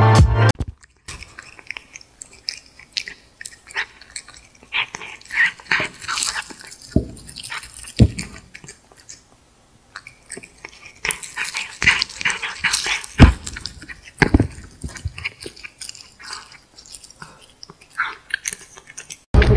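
A cat biting and chewing a crunchy piece of food held out by hand: irregular crisp crunches and clicks with short pauses. Music cuts off in the first second.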